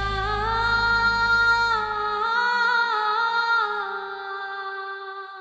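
Background score: a woman's wordless sung melody of long held notes with small pitch turns, over a low drone that stops about two seconds in. The voice fades out near the end.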